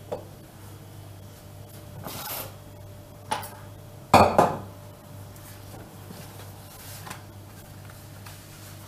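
Fresh yufka pastry sheets rustling softly as they are unfolded and spread on a countertop, with a sharp double knock about four seconds in, the loudest sound, and lighter knocks at the start and just after three seconds.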